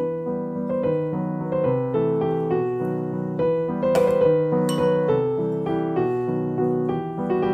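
Background instrumental music: a melody of short, evenly paced notes over lower held notes, with a couple of faint light clicks about four seconds in.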